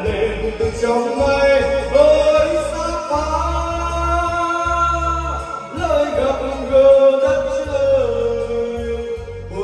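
A song with a male voice singing long held notes over a pulsing bass line.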